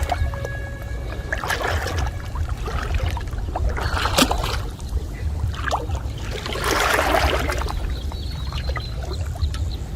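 Water splashing and sloshing in several separate bursts, the longest about two-thirds of the way through, over a steady low rumble.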